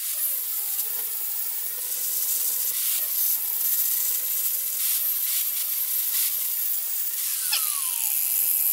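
A 4.5-inch Porter-Cable angle grinder with a coarse grinding disc grinding down a weld on quarter-inch steel plate: a steady motor whine under a hiss of grinding, the pitch dipping briefly each time the disc is pressed into the metal. Near the end the motor pitch falls away.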